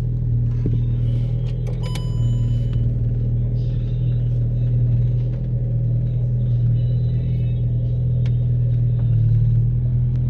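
Car engine idling: a steady low rumble, with a short high tone about two seconds in.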